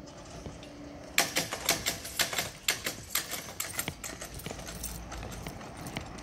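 Level-crossing boom barriers coming to rest. A steady hum stops about a second in. Then the hanging lattice skirts rattle and clatter in a quick run of irregular clicks, which thins out to scattered clicks.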